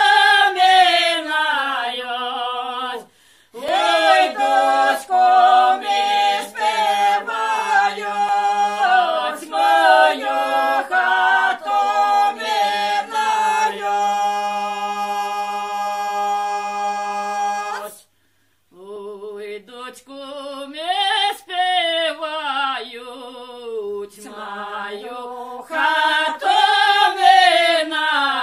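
A group of village singers performing a Central Polissian Ukrainian folk song a cappella, with no instruments. They hold one long note in the middle of the phrase and break off briefly after it before the next line.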